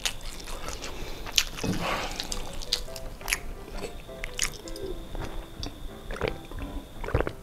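Background music with close-miked chewing and wet mouth clicks, then swallowing gulps of a drink from a stainless steel tumbler in the second half.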